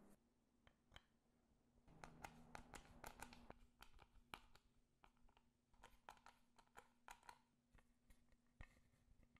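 Faint, irregular clicks, taps and scrapes of hand assembly: small screws being driven by screwdriver into a 3D-printed plastic plate, and the plate and parts being handled. A faint steady hum runs underneath.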